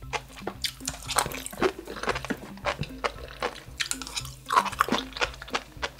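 Sea grapes being chewed, popping and crunching in a rapid run of small crisp clicks, over soft background music.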